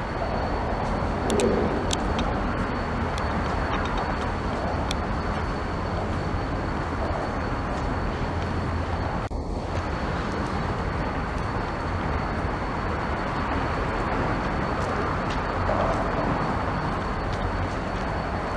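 Steady outdoor background noise with a low rumble, a thin steady high whine and a few faint clicks.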